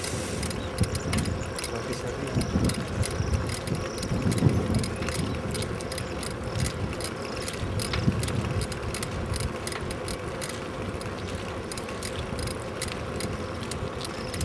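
Bicycle taxi riding along a paved road: a steady rolling noise with rapid, irregular light clicking and rattling from the bike's mechanism, over uneven low rumbles.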